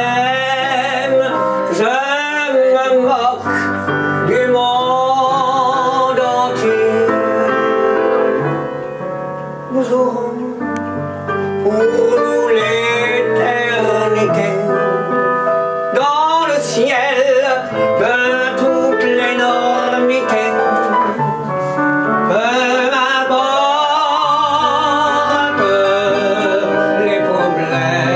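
A man singing a slow melody with a wide vibrato over instrumental accompaniment; the music drops briefly in level about a third of the way through.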